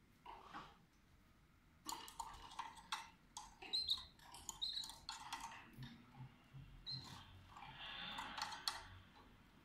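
Canaries moving about in a wire cage: a quick run of small clicks and taps that starts about two seconds in, with a few short, high chirps and a soft rustle near the end.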